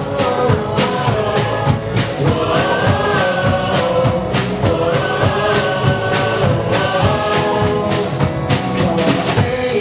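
Live student band performing a pop-rock song, with several voices singing together over steady drum beats.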